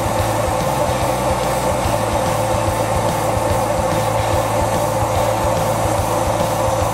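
Homemade metal lathe running steadily, spindle turning a steel workpiece, with a constant mechanical tone and a low hum from the drive.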